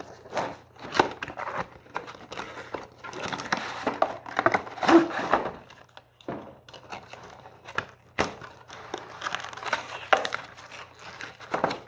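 Cardboard toy packaging being opened by hand: the box and its card insert rustle, crinkle and scrape, with many sharp clicks and snaps at irregular intervals.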